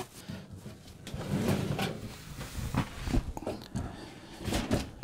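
Irregular knocks, scrapes and rustles of hands working an RV stove back into its cabinet opening, with a few sharper knocks near the end.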